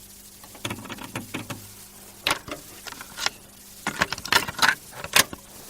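Irregular clicks and rattling taps over a steady low hum, ending abruptly.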